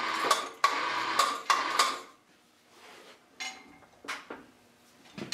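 Steel chain clattering and clinking as a chain hoist lifts a hydraulic cylinder rod a little higher, for about two seconds, followed by a few light metal clinks.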